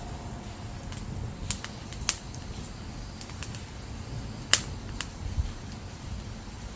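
Dried firewood burning: a steady low rumble of flame with a few sharp, scattered crackles and pops, the loudest about four and a half seconds in.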